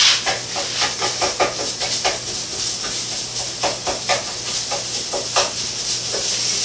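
Ground meat sizzling as it fries in a pan on the stovetop, with repeated short scrapes and clicks of a utensil stirring and breaking it up.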